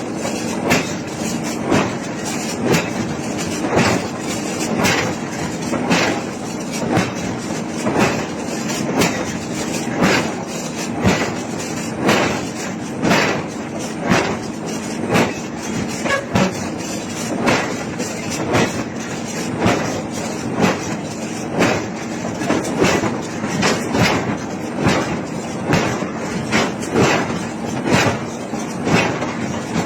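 Heavy hammer blows on hot iron in a forge, about one a second at a steady pace, over a continuous low machine hum.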